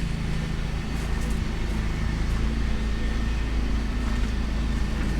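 Steady, even engine sound from a Volkswagen New Beetle's 1.9-litre ALH TDI four-cylinder diesel, which has a long-standing no-start problem.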